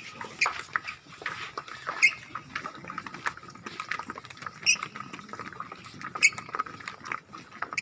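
Footsteps and shuffling of a group of children walking on a hard paved floor: many irregular light taps, with a brief high squeak now and then.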